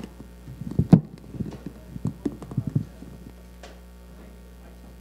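A cluster of irregular knocks and thumps over about two seconds, the loudest about a second in: things handled on a desk close to a microphone. A steady mains hum runs underneath.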